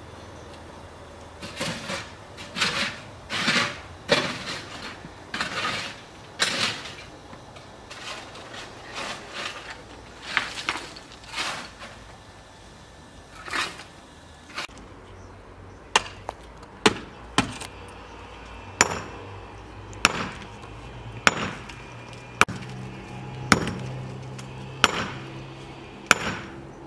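Chopping on wood: irregular knocks and scraping strokes, then about ten sharp, evenly spaced chops a little over a second apart.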